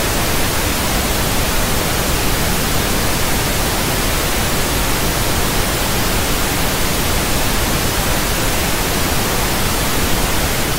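Analog TV static: a loud, steady hiss of white noise.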